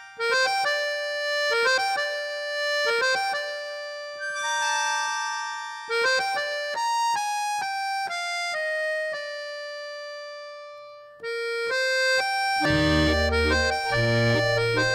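Instrumental waltz music: a keyboard melody of single notes, each fading away, joined about two-thirds through by a low bass-and-chord accompaniment.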